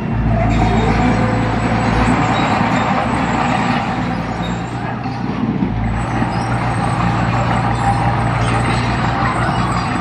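Diesel engine of a Komatsu D20P crawler bulldozer running steadily, with a brief dip in loudness about halfway through.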